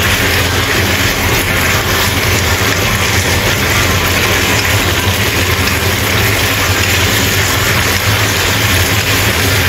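Lotus root slices and dried squid shreds sizzling in a wok as they are stir-fried and tossed with a wooden spatula, over a steady low hum.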